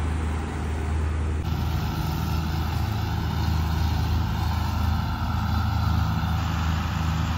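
Tractor engine running steadily, a low even hum.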